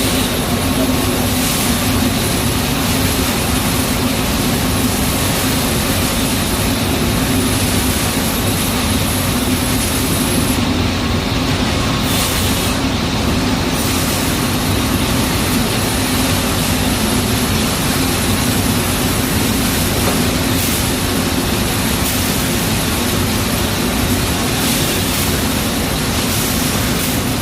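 Spring end grinding machine running, a steady loud grinding noise over a constant low hum as it grinds the ends of coil springs flat.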